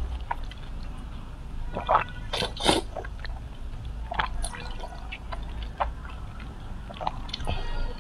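Close-miked wet eating sounds: a mouth sucking and slurping on a sauce-coated piece of meat, with several short sticky smacks and clicks, the loudest a pair of smacks about two and a half seconds in.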